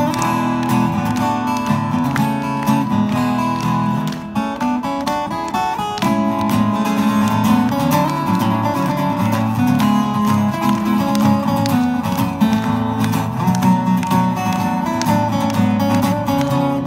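Two acoustic guitars playing an instrumental duet, strummed chords under a picked melody. About four seconds in the low strummed chords drop out for roughly two seconds while the melody carries on, then come back.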